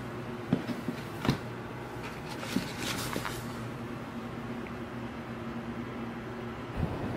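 Magazines and a paperback being handled at a bookshelf: a few sharp knocks of the books against the shelf in the first few seconds and a brief rustle of paper. A steady low electrical hum runs underneath, with a thump near the end.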